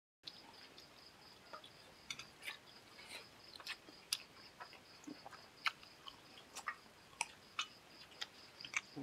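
Close-miked eating by hand: irregular wet smacks and chewing clicks as a man eats rice and chicken curry with his fingers, a few sharp clicks a second, with a faint steady high whine underneath.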